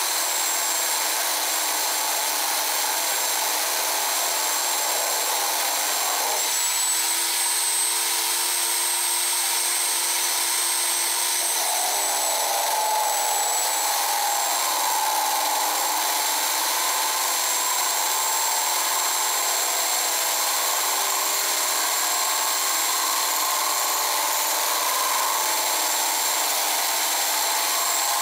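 Bench drill press running steadily with its bit grinding into a duct-taped glass bottle. A constant grinding hiss under a thin, high whine that shifts slightly in pitch a few times.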